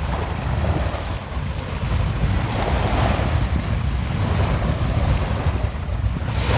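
Small waves washing onto a sandy beach, the wash swelling and fading every few seconds, over a steady low rumble of wind on the microphone.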